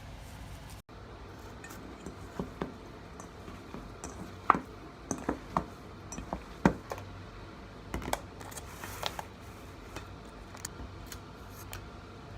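Kitchen utensils and dishes being handled: a scattered series of light clicks and knocks over a steady low hum, busiest in the middle.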